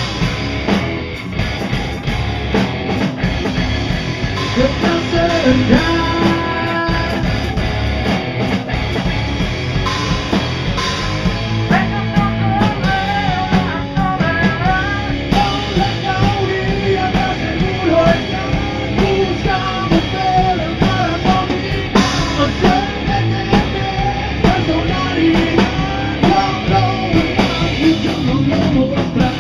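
Rock band playing an instrumental passage on electric guitars and drum kit. About twelve seconds in, a lead guitar line of bending, wavering notes comes in above the band.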